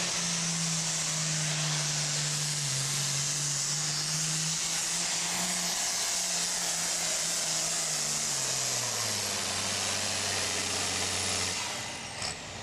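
International 1066 super farm pulling tractor's turbocharged diesel at full throttle under the sled, with a loud high turbo hiss over the engine note. The engine note sinks steadily as the sled loads it down through the pass. It shuts off near the end, leaving a falling whistle.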